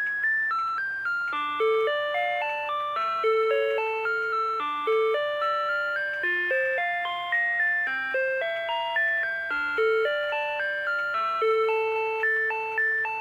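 Rhythm Watch 'Week Time' electronic melody alarm clock playing one of its built-in tunes. The simple chiming melody runs over a lower accompanying line, each note struck and fading in a steady rhythm.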